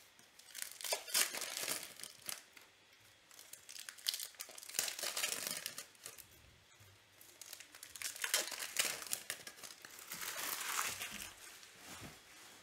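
Foil baseball-card pack being torn open and crinkled by hand, in three bursts of rustling crinkle with short sharp ticks.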